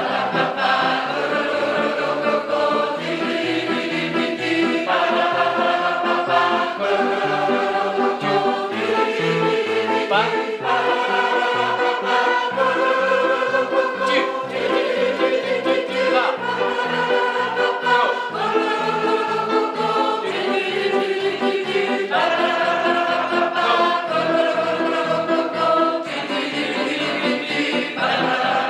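Large mixed choir of men and women singing a song together in chords, the held notes moving to a new chord every second or two over a pulsing low accompaniment.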